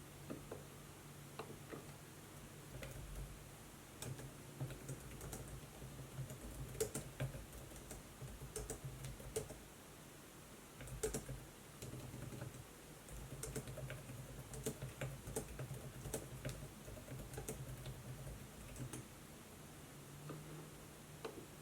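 Typing on a laptop keyboard: irregular runs of light key clicks with short pauses, over a faint low hum.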